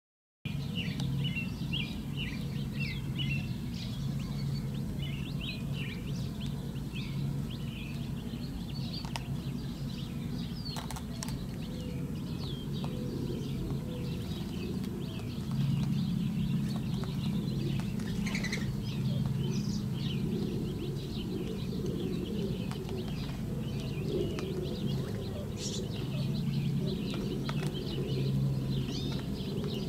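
Gambel's quail chicks peeping: many short, high chirps in quick, irregular succession, over a steady low hum that grows a little louder about halfway through.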